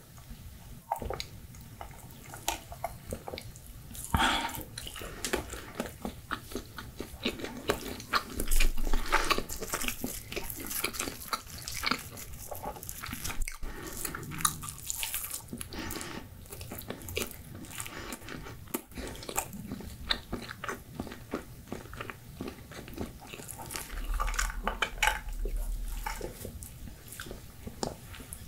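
Close-miked eating sounds of pizza being bitten and chewed, with the crust crunching in many small crackles and clicks.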